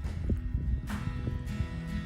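Background music, with held chords and a new chord struck about a second in.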